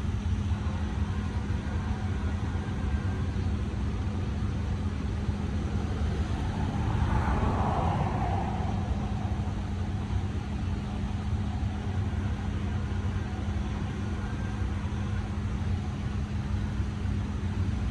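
BNSF freight train's diesel locomotives working upgrade on the eastbound climb, a steady low rumble and hum, with a brief swell of noise about seven seconds in.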